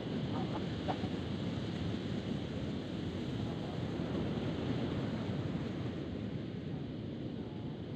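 Wind rushing over the microphone with ocean surf washing on the shore behind it, a steady rumbling noise throughout.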